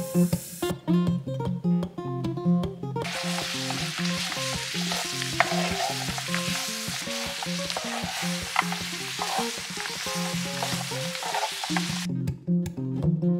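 Syrup-coated peanuts sizzling in an electric grill pan while a wooden spatula stirs them, with scattered clicks and scrapes against the pan. The sizzling starts about three seconds in and stops shortly before the end, over light guitar music.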